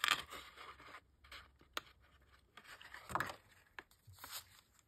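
Stiff kraft paper envelopes being handled and slid across a cutting mat: scraping rustles at the start, about three seconds in and again after four seconds, with light taps in between.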